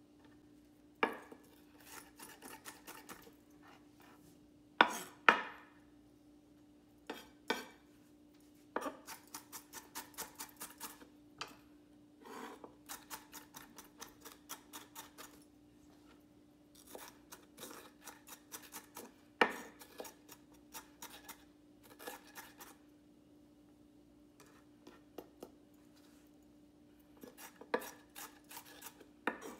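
Chef's knife finely chopping onion on a wooden cutting board: runs of quick, light taps of the blade on the board in bursts with short pauses, and a few louder knocks.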